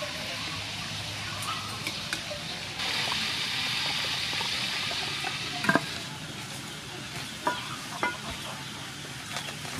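Pork belly deep-frying in hot oil: a steady sizzle that grows louder for about three seconds midway. A few sharp metal clinks come in the second half.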